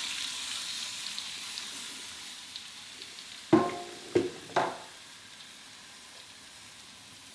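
Spice paste sizzling in a frying pan after a little water is added, the sizzle dying away over the first few seconds. About halfway through come three ringing metallic knocks within about a second, the loudest sounds.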